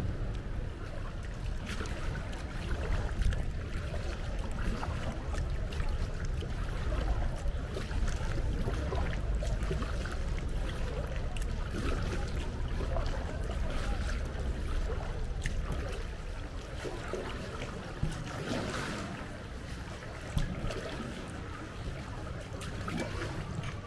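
Kayak paddling: paddle blades dipping and water trickling and splashing in small irregular bursts, over a steady low rumble.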